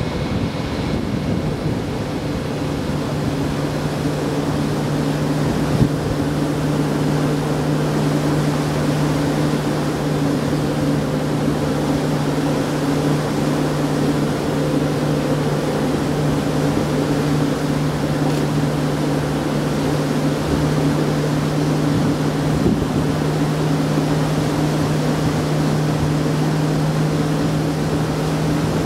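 Steady low drone of a coastal passenger ferry's engines under way, over the rush of water and wind along the ship. There is a brief knock about six seconds in.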